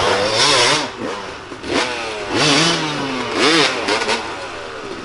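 Dirt bike engine revved hard in several bursts, its pitch climbing and dropping each time, as on a steep, loose trail section.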